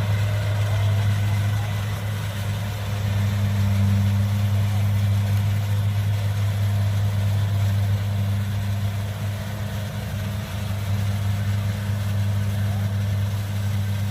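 Kubota DC70 combine harvester's diesel engine running steadily, a constant low drone.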